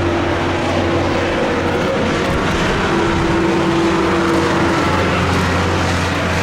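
Steady jet roar of an Embraer 190 regional jet's turbofan engines on approach, mixed with strong gusty wind on the microphone.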